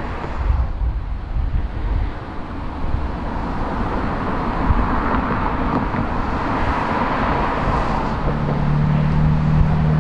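Road traffic: cars passing on the freeway on-ramp with tyre and engine noise, a low wind rumble on the microphone at first. A steady low hum joins about eight seconds in.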